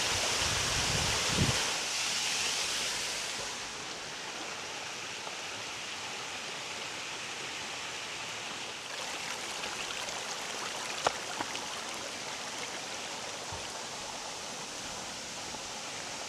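Small mountain stream waterfall: a steady rush of falling water, louder for the first few seconds and then softer. A single sharp click about eleven seconds in.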